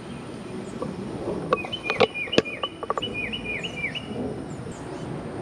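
A bird chirping outdoors: a quick run of short, repeated, high notes, each dropping at the end. A few sharp clicks come about two seconds in.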